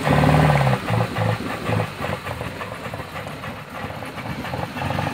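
Off-road 4x4's engine revving hard for a moment, then a few short blips of throttle, then running lower and unevenly as the revs fall away.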